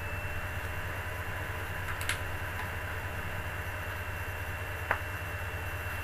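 Steady background hum and hiss with a faint, thin high whine, broken by two short clicks about two and five seconds in.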